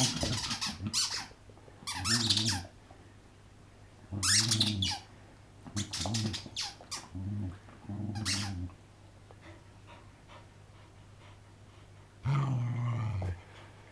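A dog chewing a rubber squeaky toy, setting off a series of short squeaks, about seven, with pauses between them and a longer gap before the last.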